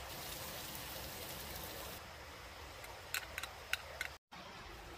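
Steady hiss of wind and light rain, with a few light clicks and taps about three to four seconds in as a hot sauce bottle is shaken over an opened drink can.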